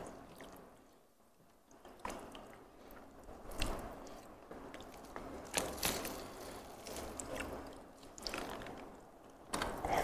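Fingers picking through rice and tearing crispy fried chicken, with small crackles and wet squishing. Near the end, a louder mouthful being bitten and chewed.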